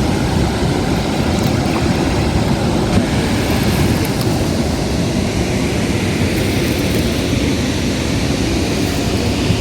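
Steady roar of Chitrakote Falls, the Indravati River plunging over a drop of about 30 m. It holds an even level throughout.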